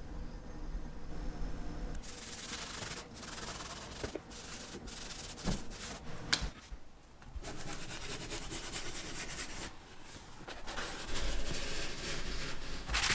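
A paper towel rubbing and wiping over a dyed leather sheath in repeated strokes, with short pauses and a single sharp click about six seconds in. The rubbing gets louder near the end.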